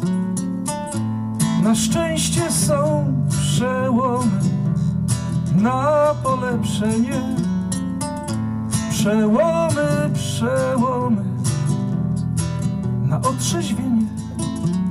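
Nylon-string acoustic guitar strummed and picked in an instrumental passage, with a wavering, bending melody line over the chords.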